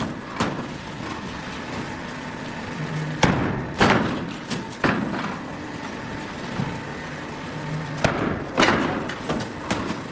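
Automatic plywood hot press line running: irregular thuds and knocks over a steady machine hum, with louder clattering stretches about a third of the way in and again near the end.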